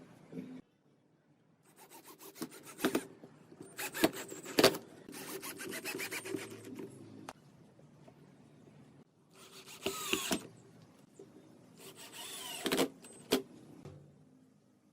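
Wood being worked by hand: rubbing and scraping on wood in several separate bursts, with a few sharp knocks and short pauses between them.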